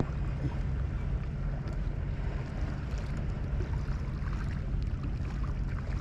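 Steady wind rumble on the microphone with water lapping against the kayak hull, and a few faint ticks.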